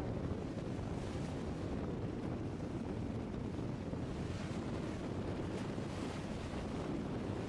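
Steady outdoor wind rumbling on the microphone, mixed with the even rush of water.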